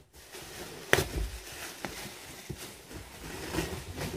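Plastic wrapping crinkling and rustling as a plastic-wrapped gaming-chair seat is handled and lifted out of its box, with a sharp knock about a second in and a few lighter clicks after.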